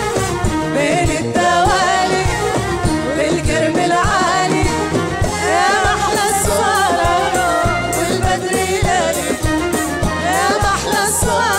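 Live Jordanian folk song: singing over a band with a steady drum-kit beat, and a men's chorus clapping along.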